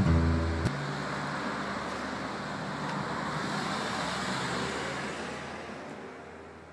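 Guitar music cuts off abruptly under a second in, leaving city street traffic noise that swells slightly and then fades away.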